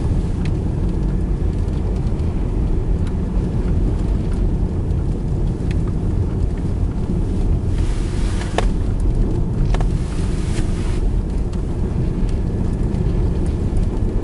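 Car driving through deep snow on an unplowed gravel road: a steady low rumble of engine and tyres, with a louder hiss about eight seconds in and again near eleven seconds, and a couple of sharp knocks.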